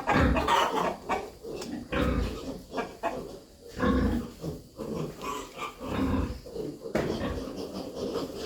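Rooster clucking: a string of short clucks and calls in irregular bursts, some coming close together.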